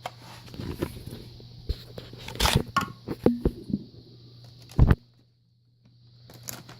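Irregular clicks, knocks and rustles of objects being handled, with a loudest knock about five seconds in. The sound then cuts out completely for about a second.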